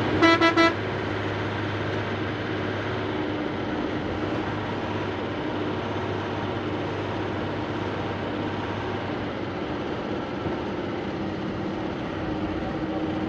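A horn gives three quick toots about half a second in, over the steady engine and road noise heard inside a moving bus's cab.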